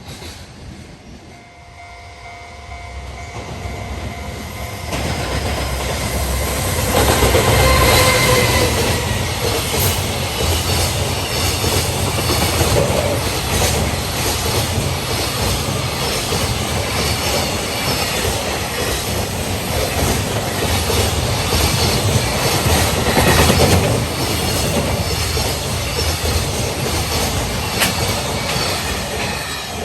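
Freight train passing: it swells from faint to loud over the first several seconds, then a steady rumble of wagons goes by with the repeated clatter of wheels over rail joints.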